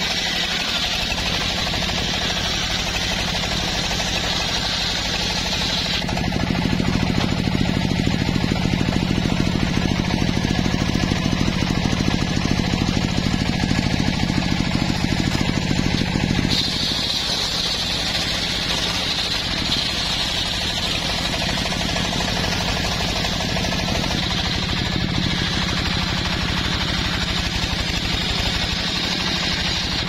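Homemade engine-driven circular sawmill running steadily, its large blade cutting lengthwise through an old mahogany log. The sound gets louder and heavier about six seconds in, as the blade works under load, and eases again about ten seconds later.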